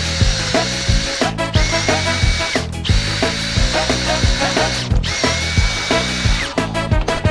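Power drill running in three or four long runs, its motor whine spinning up at the start of each run and winding down at the end, over background music with a steady beat.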